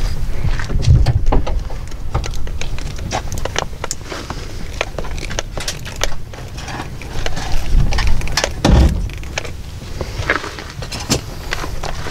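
Small metallic clicks, taps and rattles of a screwdriver and hands working the terminal screws of a plastic-cased Victron SmartSolar MPPT solar charge controller, over a low rumble.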